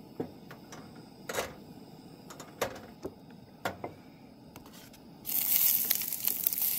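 A few light clicks and knocks, then about five seconds in a sudden sizzle starts as vegetables go into hot cooking oil in a frying pan, and keeps frying.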